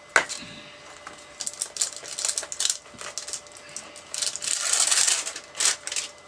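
Crinkling and rustling of a clear plastic sleeve as clear stamps are handled and taken out of their packaging, in irregular bursts that get denser near the end. A single sharp click comes right at the start.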